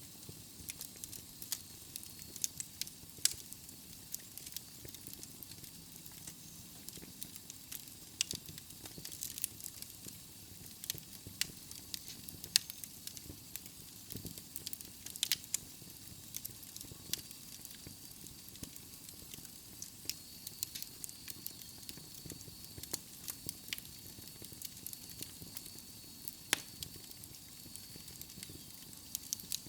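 Wood logs burning in a fireplace, crackling and popping at irregular moments over a soft steady hiss, with a few louder pops among many small ones.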